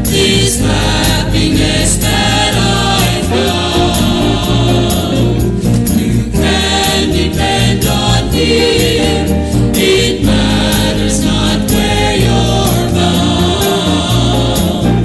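A mixed choir of men and women singing a 1970s gospel song with vibrato, backed by organ, piano, bass guitar and drums.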